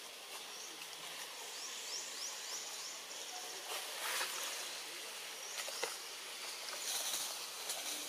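Outdoor tree-canopy ambience: a steady high hiss, with a run of short high chirps about two seconds in and scattered rustles and snaps of leaves and branches as monkeys move about the tree.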